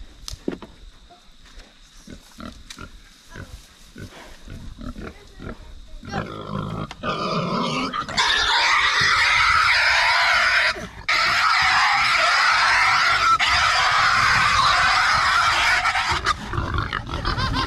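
A pig screaming loudly as she is grabbed and lifted by her front end. The scream builds from about six seconds in, holds for about eight seconds with a brief break near the middle, and eases off near the end.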